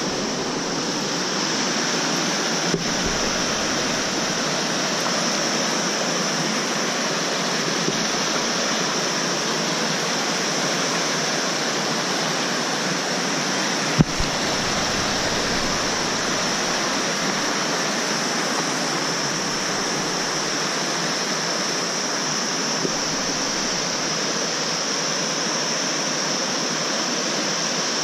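A fast mountain river rushing over boulders in white-water rapids: a loud, steady rush of water. A single sharp knock stands out about halfway through.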